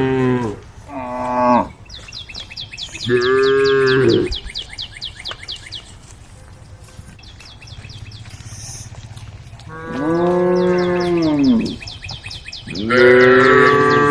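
Cows mooing: a call dies away at the start, then a short, higher call, then long, loud moos a few seconds apart, the last two close together near the end. A fast, high chirping runs in the background between the calls.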